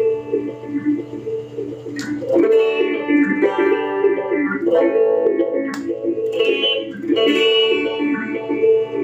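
Electric guitar chords played through a Joyo Vision dual-modulation pedal set to its liquid (LQD) phaser effect, with freshly strummed chords about 2, 5 and 7 seconds in ringing on between them.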